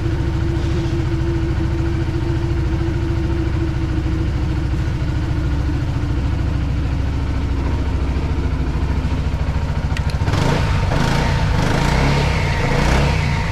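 BMW C400X scooter's single-cylinder engine idling steadily, just restarted on its refitted battery after going flat. About ten seconds in there is a click, and the running turns louder and rougher.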